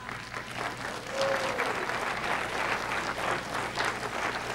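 Audience applauding, the clapping building up about a second in.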